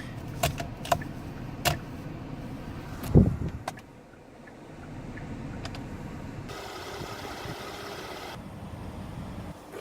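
A few sharp clicks and then a heavy thud, as in handling things around a car, followed by a steady low running hum with a stretch of hiss partway through.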